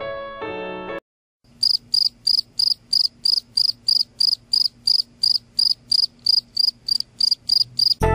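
Cricket chirping in an even rhythm of about three short, high chirps a second, starting just after the music breaks off, over a faint steady low hum.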